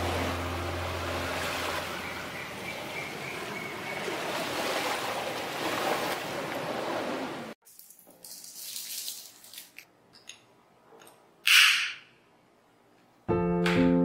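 Soft music fades into the steady wash of sea waves on a sandy shore, which cuts off abruptly about halfway through. Then a quiet room with a few small clicks and one short loud hiss, a match being struck to light a tealight, before piano music begins near the end.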